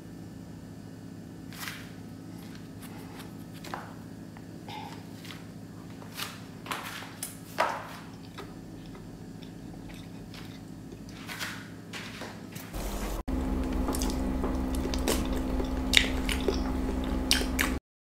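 Fingers pressing and breaking a slice of moist banana loaf: scattered soft crumbly crackles and squishes over a steady low hum. The hum gets louder about two-thirds of the way through, then everything cuts off suddenly near the end.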